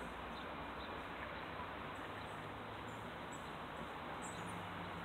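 Steady outdoor background noise with a faint low hum and a few faint, brief high chirps.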